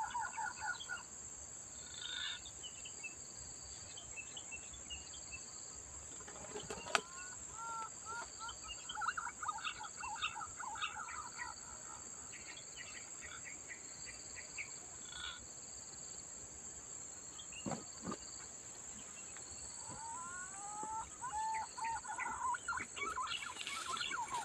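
Green pigeons (punai) calling in runs of whistled, gliding notes, several times through, over a steady high-pitched insect drone. A single sharp click about seven seconds in.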